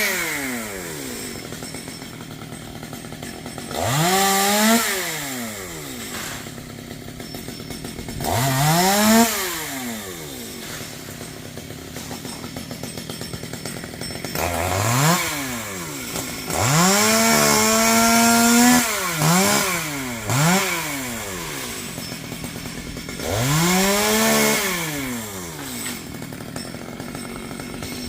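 Two-stroke chainsaw idling and revved up again and again, about six times. Each rev rises sharply in pitch and drops back to idle. One, about two thirds of the way through, is held at full speed for a couple of seconds.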